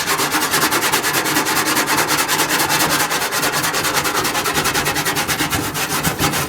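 Steel wire brush wheel, held in vice grips, scrubbed by hand over a grimy metal pan to strip heavy built-up crud: a loud, fast, even rasping of back-and-forth strokes, several a second.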